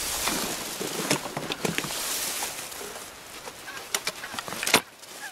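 Rustling noise with scattered clicks, then a single sharp crack near the end that is the loudest sound; faint bird calls, likely geese, can be heard.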